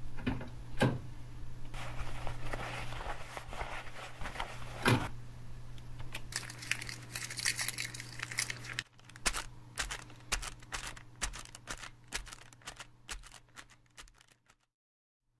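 Crackling and scraping noise with many sharp clicks over a steady low hum, thinning out about two thirds of the way through and then cutting off abruptly. This is typical of the surface noise of an old film soundtrack.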